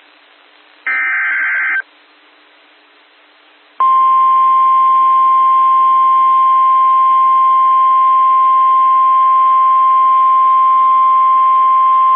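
NOAA Weather Radio alert signal: a short burst of warbling SAME digital header data, a pause of radio hiss, then the steady 1050 Hz warning alarm tone starting about four seconds in and held to the end. It signals that a new warning broadcast is about to follow.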